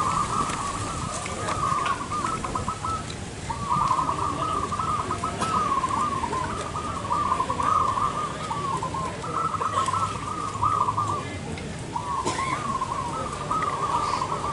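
Zebra dove (perkutut) cooing: phrases of quick, trilling coo notes, each lasting two or three seconds, repeated with short pauses between them.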